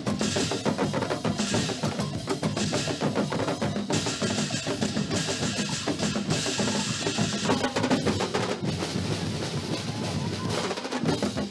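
Dinagyang tribal drum ensemble playing a fast, driving beat on bass drums and snare drums, with rolls, as dance accompaniment; bursts of high hiss come and go over the drumming.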